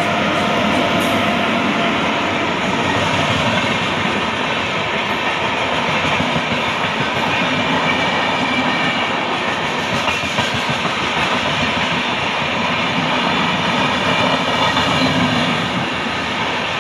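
Indian Railways WAP-7 electric locomotive and its express passenger coaches passing at speed: a loud, steady rush of steel wheels running on the rails.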